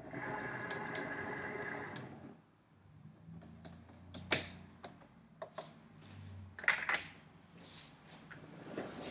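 Cricut Maker 3 cutting machine's motor whirring steadily for about two seconds as it draws the mat in and measures its length, then stopping. After that come sharp clicks and short mechanical knocks, the loudest about four seconds in, with a brief low motor hum near the end.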